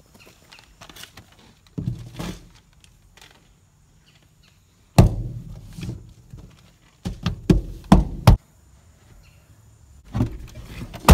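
Dull thumps and knocks on a Ford F-150 pickup's body and glass: a few soft ones early, a loud one about five seconds in, a quick cluster around seven to eight seconds, then a sharp bang at the very end as a truck door shuts.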